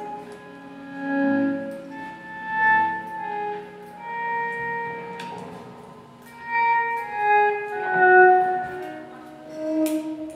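Two electric guitars through effects playing slow, overlapping held notes with a bowed-sounding tone that swell and fade as the pitches shift, with a few sharp clicks.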